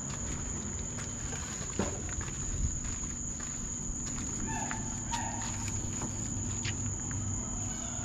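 Night insects calling in a steady, unbroken high-pitched drone, with a few faint knocks and rustles.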